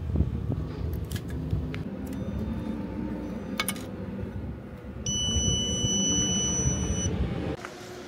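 Fiber optic fusion splicer being loaded: a few sharp handling clicks, then a steady electronic beep lasting about two seconds, starting about five seconds in, over a low background rumble.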